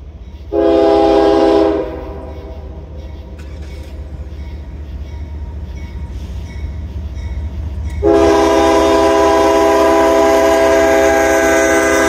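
CSX freight locomotive's air horn blowing for the grade crossing: a blast of about a second starting about half a second in, then a long blast from about eight seconds in that is still sounding as the locomotive reaches the crossing. This is the closing short and long of the long-long-short-long crossing signal, heard over the low rumble of the approaching train.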